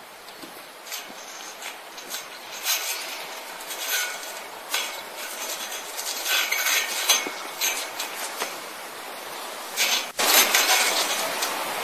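Stiff polyester farm wire being twisted and knotted by hand around a metal pole: irregular light clicks and clinks over a steady hiss. A louder hiss takes over about ten seconds in.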